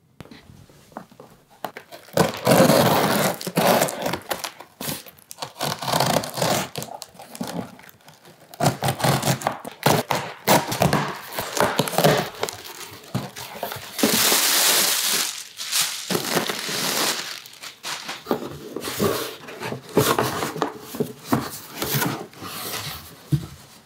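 Packing tape being ripped off a cardboard shipping box, then cardboard flaps and plastic packing rustling and crinkling as the box is opened and an inner box taken out, in a series of rips and rustles.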